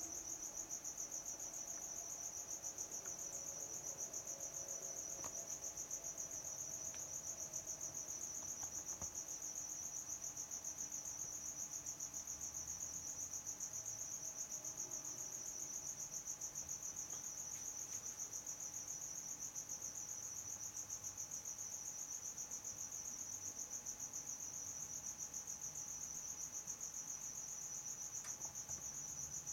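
Insect chirping, a high-pitched trill pulsing evenly and without a break.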